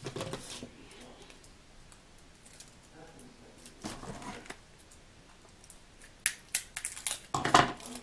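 Small plastic camera parts and packaging handled by hand: soft rustles, then a quick run of sharp clicks and snaps near the end.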